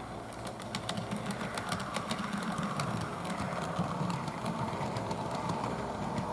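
HO scale model train running along the track: a steady rumble with many irregular clicks of the wheels passing over rail joints, growing a little louder about half a second in as it nears.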